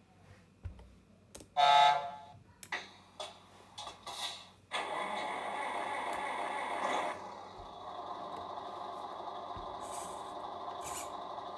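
RC Volvo FH16 truck's sound module powering up: a short loud pitched tone about a second and a half in, a run of short clicks and bursts, then the simulated truck engine starts suddenly near five seconds in, runs louder for about two seconds and settles into a steady idle.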